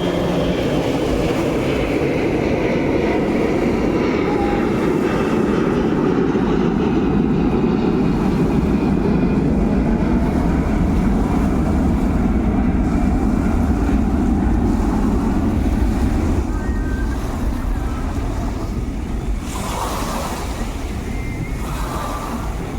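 A boat under way at sea: a steady engine hum under the rush of water and wind buffeting the microphone, easing a little near the end.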